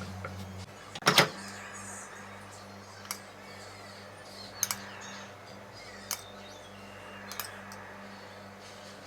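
A few short, sharp clicks and knocks of kitchen handling over a steady low hum, the loudest about a second in.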